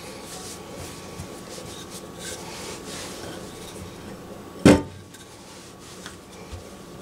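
Hands gathering and pressing pastry dough on a floured stone countertop, soft rubbing and handling noises. About two-thirds of the way through there is one sharp knock, as the wooden rolling pin comes down, and then the pin rolls over the dough.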